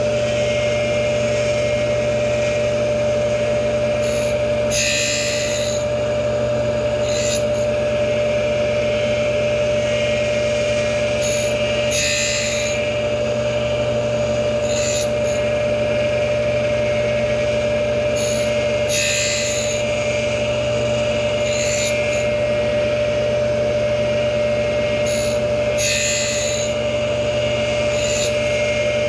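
Tool post grinder running with a steady motor whine and hum while its small wheel sharpens the teeth of a horizontal milling cutter. A gritty hiss of wheel on tooth comes and goes every few seconds as the wheel is run across the teeth.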